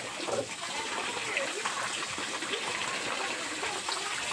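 Water running and gushing steadily.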